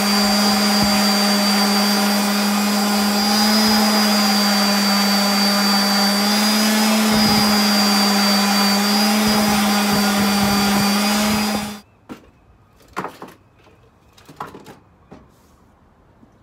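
Palm random orbital sander running steadily against the workpiece, with a constant hum and a high whine, then switched off and spinning down about twelve seconds in. A few light knocks and handling clicks follow.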